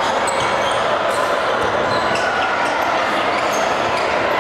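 Busy indoor volleyball gym: many short ball bounces and thuds on the hardwood floor and brief sneaker squeaks over a steady background of voices, all echoing in the large hall.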